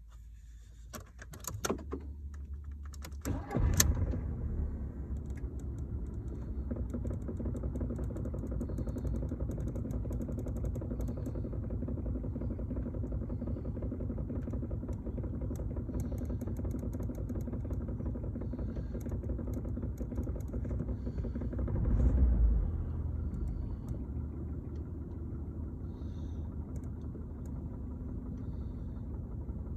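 Audi A2 1.4 petrol four-cylinder engine started with the key, a few clicks first, then catching about three and a half seconds in and settling to idle. At idle a rattle comes from the middle of the car floor, its cause unknown to the owner. A brief low surge about two-thirds of the way through.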